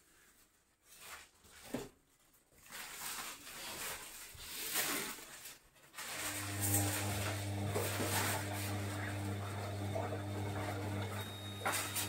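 Candy Aqua 2D 1140 compact front-loading washing machine on a wash cycle. Irregular swishing and rustling at first, then about halfway in a steady low hum starts as the brushed motor turns the drum with the wet laundry.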